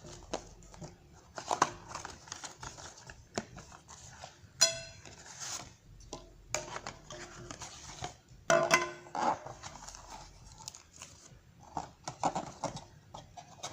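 A cardboard toy box being opened by hand and its plastic-wrapped contents handled: irregular tearing, crinkling and rustling with light knocks, the sharpest around five seconds in and again near nine seconds.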